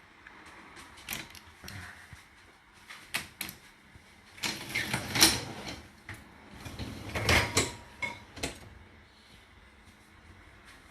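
Dishes and dishwasher racks being handled: a few light clicks and knocks, then two louder spells of rattling and scraping about four and a half and seven seconds in.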